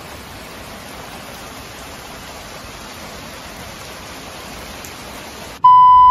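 Steady rain falling, an even hiss that cuts off abruptly near the end. A loud, steady beep takes over for the last half second.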